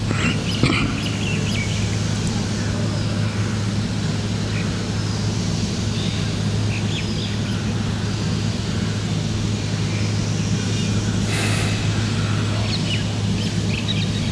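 Steady low electrical hum from the microphone's PA system, with scattered faint bird chirps and a brief breathy hiss about 11 seconds in.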